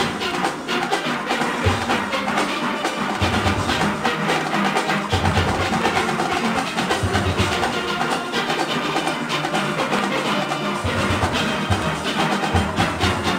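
Medium-sized steel orchestra playing: many steelpans struck together over a percussion rhythm, with a low bass part that drops out and comes back several times.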